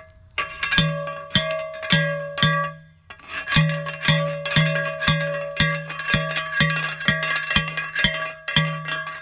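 A manual post driver pounding a steel T-post into the ground: a run of ringing metallic clangs about two a second, every blow on the same pitches, with a short pause about three seconds in.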